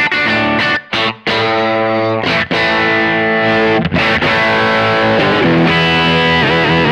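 Electric guitar with Häussel TE Broad bridge and neck pickups and an underwound ST-style middle pickup, played amplified: chords cut short by brief stops about a second in and again after two seconds, then held notes with wavering vibrato over the last few seconds.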